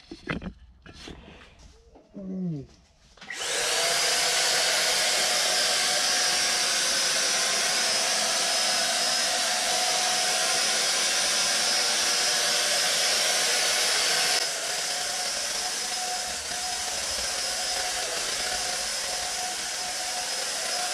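Electric paint sprayer starting about three seconds in with a rising whine, then running steadily with a whine over a hiss as water-thinned paint is sprayed onto a door. It drops a little in level about two thirds of the way through.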